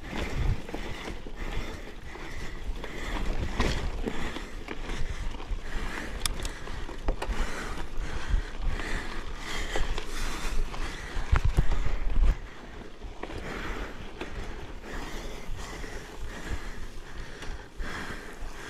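Mountain bike being ridden over a rough trail, heard through an action camera's microphone: wind rumble on the mic with tyre and frame noise and occasional sharp clicks. The heavy low rumble gusts stop suddenly about twelve seconds in, leaving lighter riding noise.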